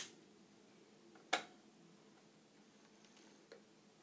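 Slow-running N gauge model freight train clicking on the track as it shunts: two sharp clicks about a second and a half apart, then a fainter one, over a faint steady hum.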